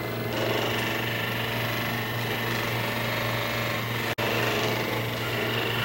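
A small electric motor buzzing steadily, with a rapid mechanical chatter. The sound cuts out for an instant about four seconds in.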